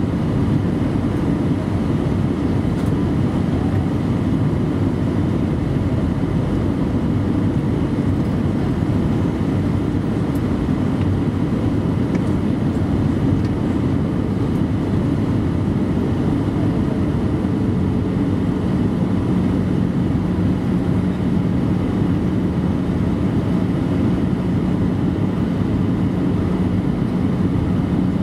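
Cabin noise inside an Airbus A319-112 on descent: a steady rush of airflow and the drone of its CFM56 turbofan engines, mostly low-pitched. A low steady hum joins in a little past the middle.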